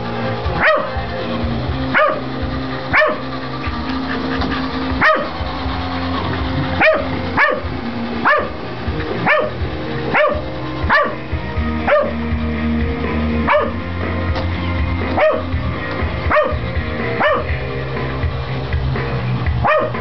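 Pembroke Welsh Corgi barking frantically at a Roomba robot vacuum: short, sharp barks about once a second, over rock music.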